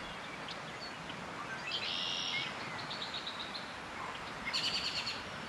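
Songbirds calling: three short calls of rapid repeated high notes, about two seconds in, a fainter one about three seconds in, and another near the end, over a steady outdoor hiss.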